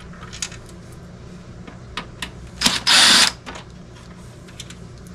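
Cordless drill-driver spinning briefly about three seconds in, backing a screw out of the dehumidifier's plastic front panel, with light clicks and taps of handling before and after.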